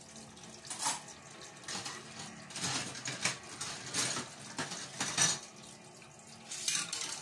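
Metal cutlery and dishes clinking and clattering irregularly in a stainless steel sink during hand dishwashing, over a faint running tap.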